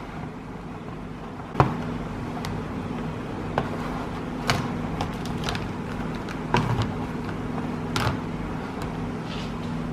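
Plastic clicks of Faber-Castell Connector felt-tip pens being snapped together one after another, about six sharp clicks a second or two apart, over a steady low hum.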